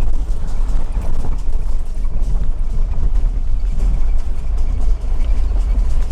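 A vehicle driving slowly over a bumpy dirt track: a steady low road rumble with irregular knocks and rattles from the rough surface.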